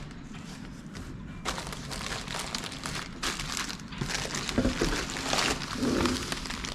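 Packaging crinkling and rustling in stretches as a parcel of engine mounts is unwrapped by hand.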